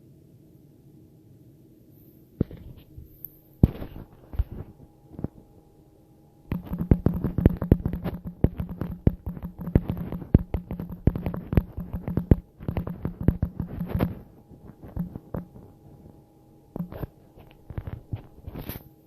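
A woman belching loudly: a few short burps, then one long, crackling belch of about seven seconds at a steady low pitch, then several short burps.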